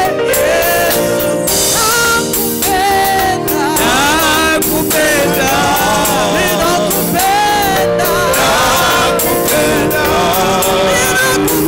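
Live gospel worship singing: a woman leads into a microphone with the men of the worship team singing with her, over a steady instrumental accompaniment.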